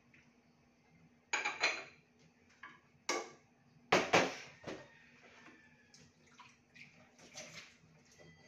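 Dishes and utensils clattering and knocking at a kitchen sink during washing up: a few short bursts, the loudest about four seconds in.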